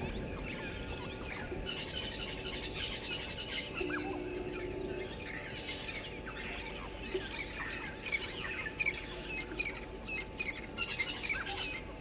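Several small birds chirping and calling over one another, a busy run of short high notes that grows denser after about two seconds, over a faint steady hum.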